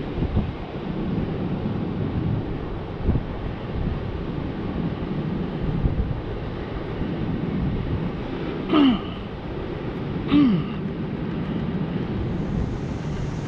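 Steady wind noise on the microphone with surf behind it. Twice, a second and a half apart, a man lets out a short pained grunt that drops in pitch, from working cholla cactus spines out of his foot.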